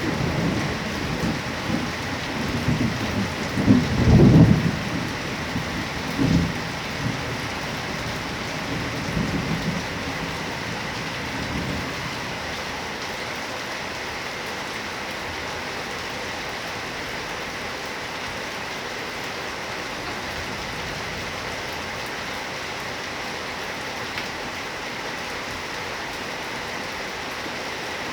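Heavy rain falling steadily, with thunder rumbling through roughly the first twelve seconds, loudest about four seconds in; after that only the steady rain.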